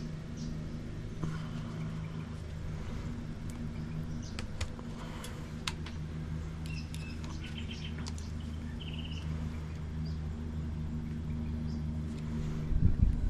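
Small clicks and taps of an electrical plug's brass end being pried and worked loose by hand, over a steady low hum. A few short bird chirps come in around the middle, and a louder rumble of handling starts near the end.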